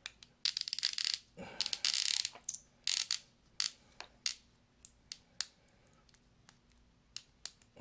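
Small repair tools and phone parts being handled on a work surface: three short scraping, rustling bursts in the first three seconds, then a string of sharp, separate little clicks.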